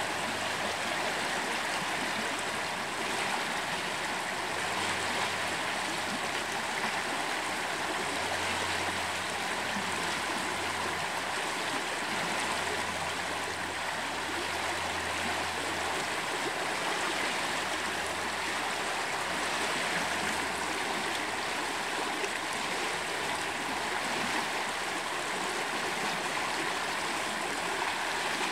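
Steady rush and ripple of the Molalla River's current flowing through a rocky channel.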